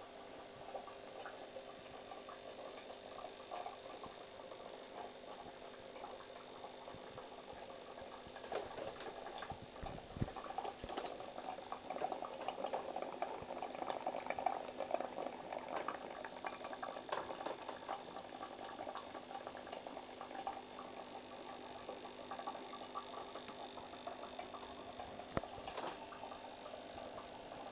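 Aquarium water bubbling: a dense, steady crackle of small bubbles that grows busier about a third of the way through, with a few sharp clicks.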